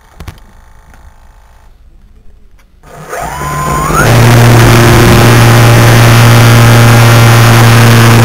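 After a click and a few seconds of faint noise, a model aircraft's motor spins up with a rising whine about three seconds in, then runs loud and steady at full throttle right beside the onboard camera during takeoff.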